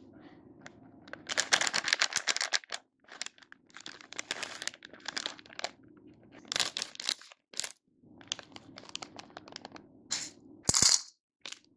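Thin plastic snack packets crinkling in irregular bursts as they are handled and shuffled together, with a short sharp crackle near the end.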